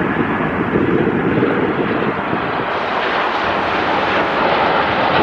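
Jet airliner engine noise: a steady rushing roar that turns higher and hissier a little over halfway through.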